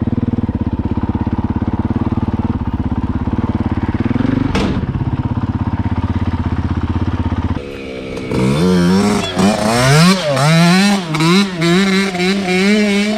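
Dirt bike engine running at a steady pitch, then, after a sudden change about seven and a half seconds in, a dirt bike engine revving up and dropping back again and again, its pitch rising and falling several times as it accelerates.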